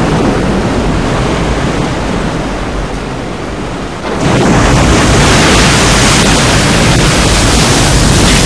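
Loud rushing noise of surging water and wind, a film disaster soundtrack. It steps up louder at a cut about four seconds in.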